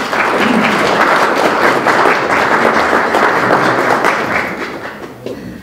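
Audience applauding, a dense spatter of many hands clapping that dies away near the end.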